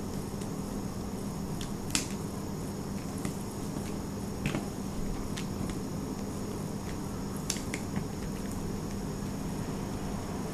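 A few sharp small clicks and taps of a screwdriver and plastic phone parts being handled, over a steady low hum.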